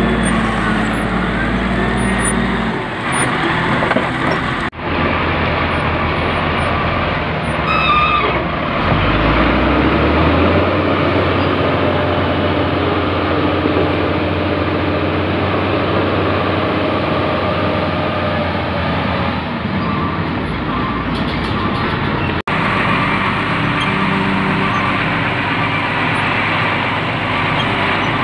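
Caterpillar motor grader's diesel engine running steadily under load while the blade spreads gravel, its engine speed rising about nine seconds in. The sound breaks off abruptly twice.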